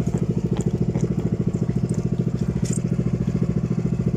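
Small fishing boat's engine running steadily with a fast, even throb. A few faint light clicks sound over it.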